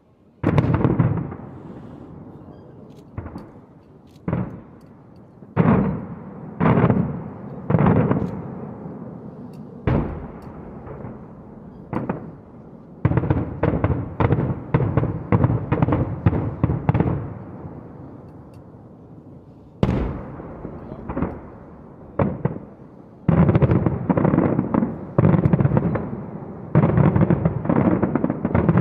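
Daytime fireworks display: loud aerial shell bursts, single bangs about every second or two at first, then rapid volleys around the middle and again near the end, each bang trailing off in a long echo.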